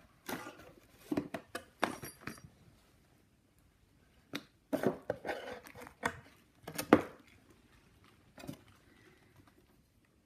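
A cardboard box and the cat toys in it rustling and knocking in short irregular bursts, as a cat roots inside with its head and a hand shifts toys about. The loudest knock comes about seven seconds in.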